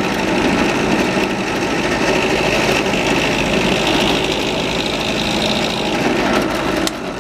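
Benchtop drill press running and drilling a screw hole through a carbon fiber part: a steady motor hum under cutting noise. It eases off near the end.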